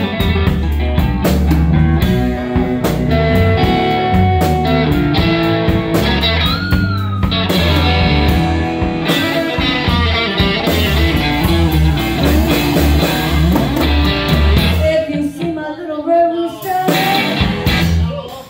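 A live blues band playing with no words sung: cigar box guitar, electric lead guitar, bass guitar and drum kit. A steady bass line and drums carry most of it, and about fifteen seconds in the bass drops out, leaving sparser guitar.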